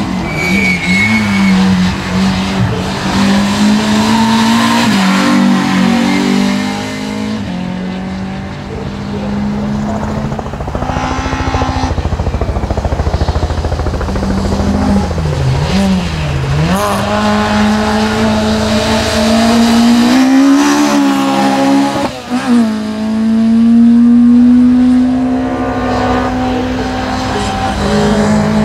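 Race cars' engines revving hard through the gears, the pitch climbing and dropping again and again with each gear change and lift-off. The engine is loudest about three-quarters of the way through, as a car comes nearer.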